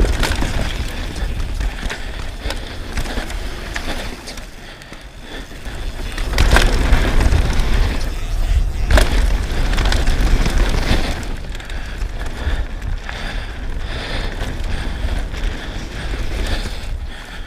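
Specialized Demo 8 downhill mountain bike ridden fast down a dirt trail: wind buffeting the helmet camera, tyres rolling over dirt and the bike rattling. It gets louder from about six to eleven seconds in, with sharp knocks about six and a half and nine seconds in as the bike hits bumps or lands.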